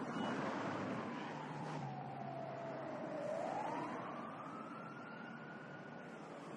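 Distant emergency-vehicle siren in a slow wail, falling in pitch for about three seconds, rising again, then holding before it starts to fall near the end, over steady street traffic noise.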